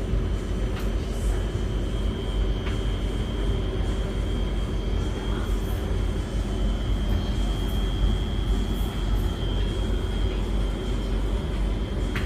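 Beko washing machine on its final spin: a steady low drum rumble with a thin high motor whine, with a couple of faint ticks in the first few seconds. The spin rocks the tumble dryer stacked on top, which makes the little tapping noises.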